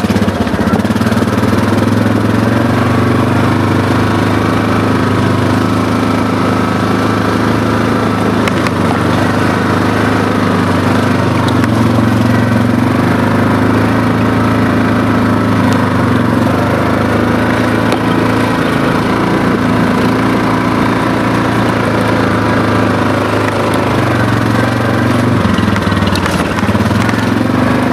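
ATV engine running steadily as the machine rides along a trail, its pitch rising and falling a little with the throttle.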